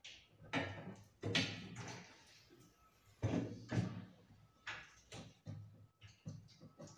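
Lift-up kitchen wall-cabinet flap door on Ebco Pro Lift gas-spring stays being raised and lowered by hand, giving several knocks and rubbing sounds from the door and its lift mechanism.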